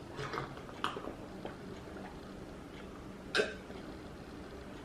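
A few light clicks and taps over low room noise, the sharpest about three and a half seconds in.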